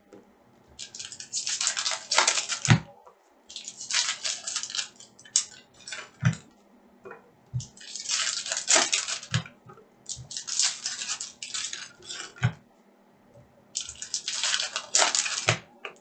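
Foil trading-card pack wrappers torn open and crinkled in repeated bursts of a second or two, with the cards handled and a few soft knocks on the tabletop between bursts.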